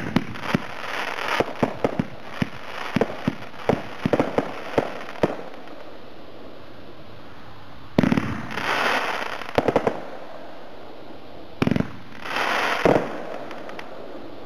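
T-Sky Cloud Stormer 25-shot firework cake firing. A break's lace effect crackles as scattered sharp pops for about five seconds, then a lull. Two more shots launch, each with a thump and a hiss: the first ends in a quick cluster of pops, the second in a loud bang near the end.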